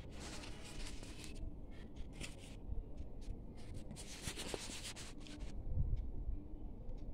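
Handling noise: hand and newspaper rubbing and rustling close to a phone's microphone, in three bursts of hiss, the longest about four seconds in, over a low rumble, with a dull low bump about six seconds in.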